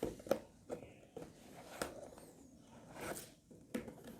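Product packaging being handled and opened by hand: intermittent rustling and tearing, with a few short clicks and scrapes.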